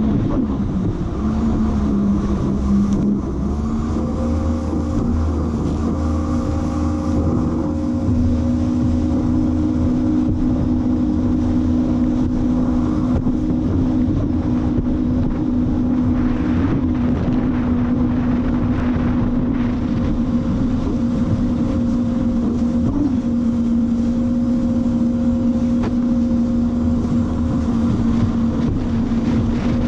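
Jet ski engine running steadily under way, mixed with rushing water and wind noise. The engine pitch steps up about three and a half seconds in and then holds steady.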